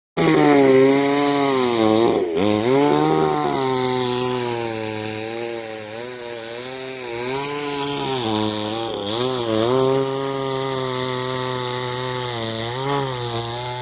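Chainsaw running at high revs while cutting wood, its engine note dipping briefly several times as the chain bites under load and then recovering.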